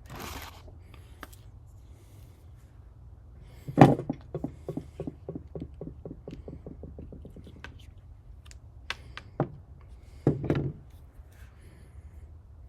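Hands working on a lightsaber hilt: a sharp knock, then a quick run of clicks that fade over about three seconds, then a few more clicks and a short rustle near the end.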